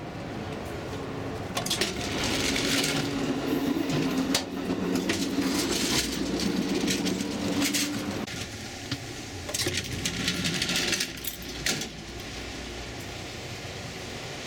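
Rattling and clicking from the end door and connecting gangway between two Amtrak Superliner cars, over a steady low hum. It is loudest for about six seconds, lighter clicks and rattles go on for a few seconds more, then it settles to the quieter steady hum of a car interior.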